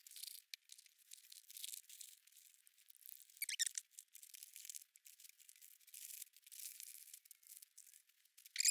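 Faint, irregular crinkling and rustling of foil food pouches and plastic bags being stuffed into a clear plastic BearVault bear canister, with a few brief squeaks of packaging rubbing against the canister wall.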